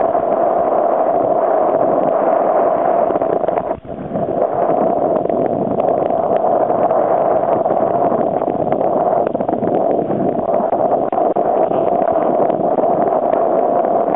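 Steady rush of water and wind buffeting the microphone as a kiteboard skims fast across choppy water, with a brief drop about four seconds in.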